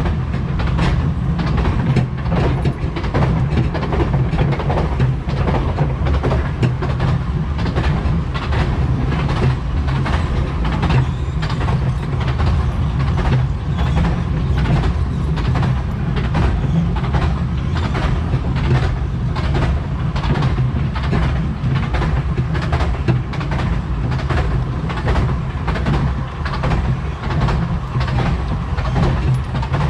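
Narrow-gauge railway carriage running along the track: a steady low rumble with a continual stream of wheel clicks and knocks over the rails.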